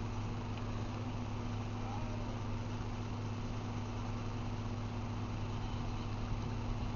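A steady low hum with a constant hiss over it, unchanging throughout.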